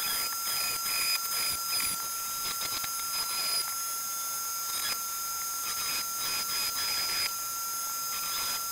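Rotary engraving tool running steadily with a high whine while its tiny burr cuts into a brass end cap in short, slow passes, each contact adding a scratchy grinding that comes and goes.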